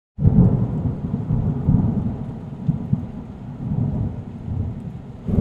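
Rolling thunder, a stock sound effect: a deep rumble that starts a moment in and swells and eases in waves.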